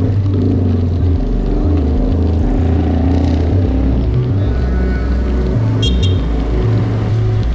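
Wind buffeting the microphone of a camera on a moving bicycle, a loud, steady low rumble, with a short high-pitched sound near the end.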